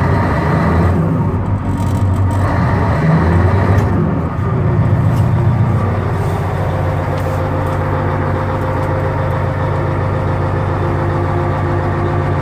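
Caterpillar 834B wheel dozer's V8 diesel engine running just after a cold start, heard from inside the cab. It is uneven for the first several seconds, then settles into a steady idle about halfway through.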